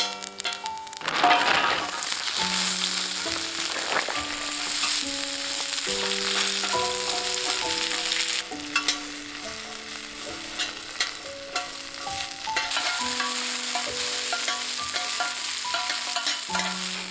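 Food sizzling as it fries in a pan, with occasional clicks of a utensil, over soft background music playing a simple stepping melody.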